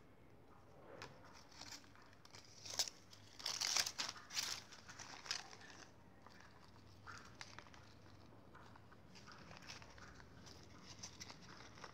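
A folded paper instruction leaflet crinkling as it is handled, loudest in a cluster about three to five seconds in, followed by quieter, scattered rustling as deflated latex balloons are handled.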